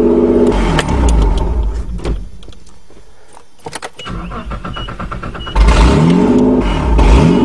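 Nissan truck's 3-litre V6 shutting off and winding down. After a pause, the key clicks, the starter cranks, and the engine fires about two-thirds of the way in and revs with heavy low thumps as the truck lurches. It is being started in gear with the clutch pushed to break free a clutch stuck by rust.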